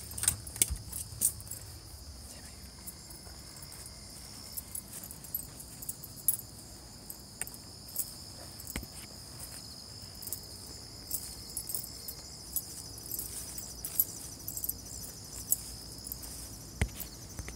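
Crickets chirping in a steady high chorus, with scattered short clicks and knocks throughout.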